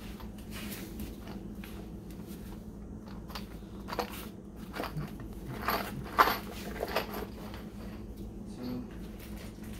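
Scattered light knocks and clicks of a person moving about and handling objects, with one sharper knock about six seconds in, over a steady low hum.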